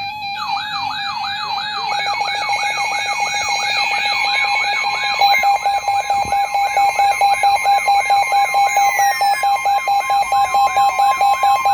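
Electronic emergency alert tones, several layered. A steady tone runs under a falling sweep that repeats about three times a second. A second steady tone joins about halfway, and from then on the sound pulses rapidly.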